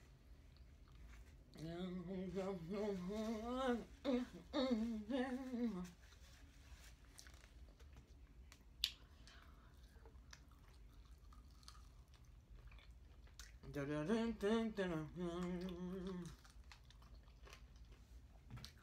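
A woman humming a slow, wavering tune in two phrases, one from about two to six seconds in and one around fourteen to sixteen seconds, while eating fried chicken wings. Between the phrases there are quiet chewing sounds and one sharp click near nine seconds.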